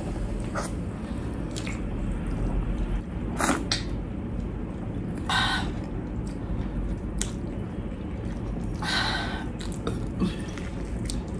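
Close-up eating sounds: chewing with wet mouth clicks, and a few short hissing noises.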